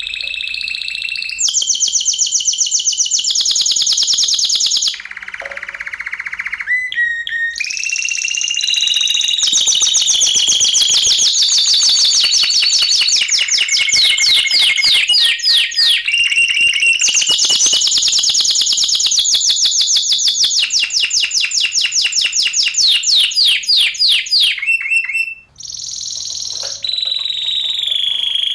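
Spanish timbrado canary song: a continuous run of fast trills and rapid repeated notes, with rising and falling glides, changing from one phrase to the next. There are two short breaks, about five seconds in and near the end.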